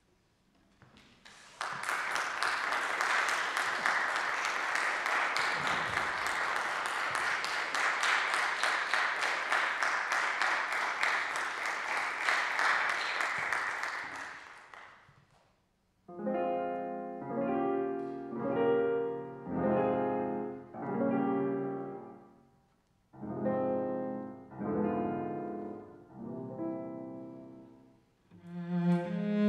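Audience applauding for about thirteen seconds, then a grand piano playing a slow series of separate chords, each left to ring before the next.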